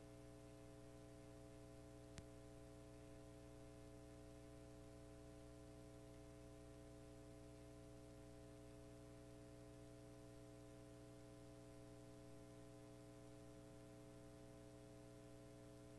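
Near silence: a steady electrical hum with a faint hiss, broken by a single short click about two seconds in.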